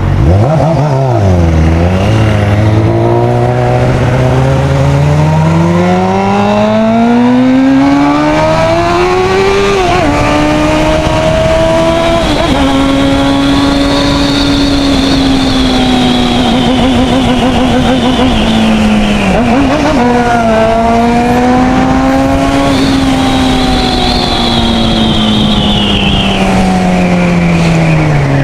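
600 cc inline-four motorcycle engine under way, over wind rush: the revs climb in one long pull, drop sharply at gear changes about ten and twelve seconds in, hold fairly steady at cruise with a brief dip near twenty seconds, and fall away near the end as the bike slows.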